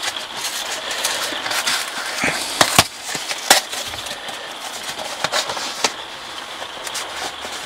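Cardboard mailer envelope being handled and torn open: paper rustling and crinkling, with a few sharp snaps as the cardboard tears, around the middle.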